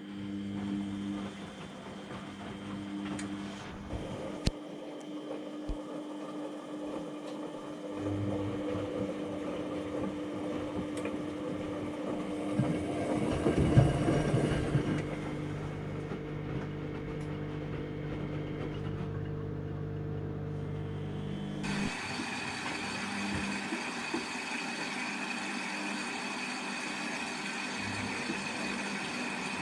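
Washing machine running: a steady motor hum with the drum turning, swelling briefly near the middle. About two-thirds of the way through, the sound changes abruptly to a brighter steady hum.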